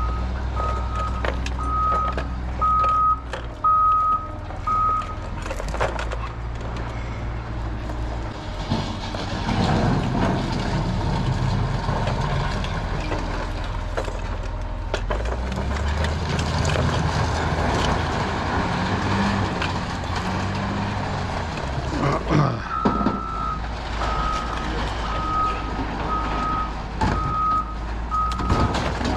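Heavy vehicle's reversing alarm beeping a little faster than once a second over its running engine. The beeping stops about five seconds in while the engine noise grows louder, then starts again near the end.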